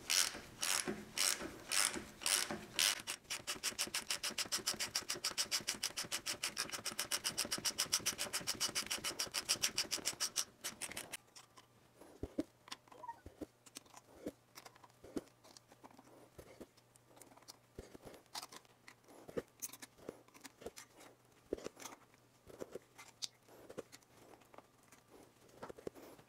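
Rapid, even mechanical clicking as the shaft that drives the DoAll milling head's rotation worm gear is cranked. The first few strokes are slow, then it runs fast and steady. About eleven seconds in it stops abruptly, leaving faint scattered scrapes and clicks over a low hum as old grease is scooped out of the gearbox.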